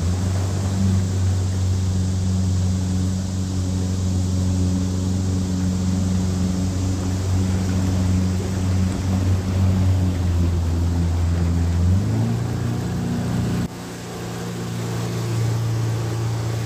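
Mercury outboard jet motor running steadily under way, with water rushing past the hull. About twelve seconds in the engine pitch rises a little, then the sound drops suddenly and builds back up.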